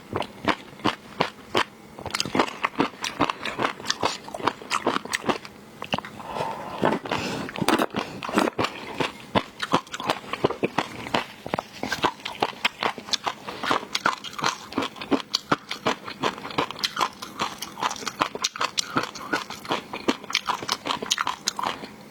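Close-miked eating of seafood: continual crunching and wet chewing, with many sharp crackles a second.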